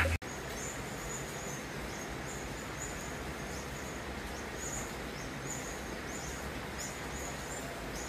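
Outdoor ambience: a steady hiss with a run of short, high chirps repeating every half second or so.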